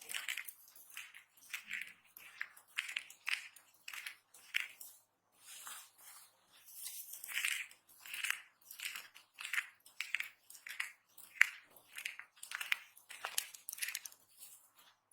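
Dry soap being cut and crushed: a string of short, crisp crunches, about two a second, with brief pauses between them.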